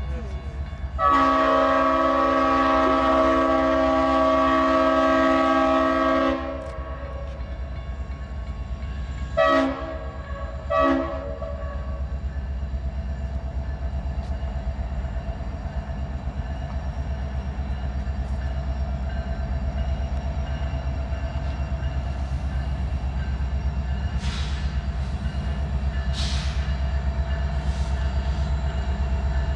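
Diesel freight locomotive's multi-chime air horn sounding one long blast of about five seconds, then two short blasts, as the train approaches. After the horn comes the steady low rumble of the locomotive's engine, slowly growing louder.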